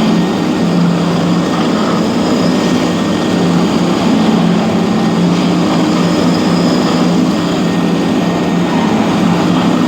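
Twin-headed DFG500 three-phase electric floor grinder running steadily with button plates grinding old concrete: a constant low motor hum under a continuous rough grinding noise.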